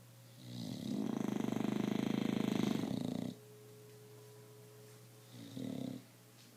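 English bulldog snoring in deep sleep. A long, fluttering snore of about three seconds comes first, then a short snore near the end.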